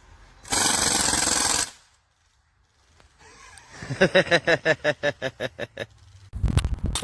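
Crosman DPMS SBR CO2 BB rifle firing a full-auto burst lasting about a second. It is followed by a person laughing in quick repeated pulses for about three seconds, and a second short full-auto burst near the end.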